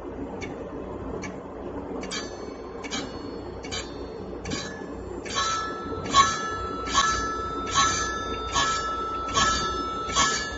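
Automatic circular saw blade sharpening grinder running over a low motor hum, its indexing mechanism clicking about once every 0.8 s as it steps the blade tooth by tooth. About halfway through, each stroke becomes louder and sets the steel saw blade ringing.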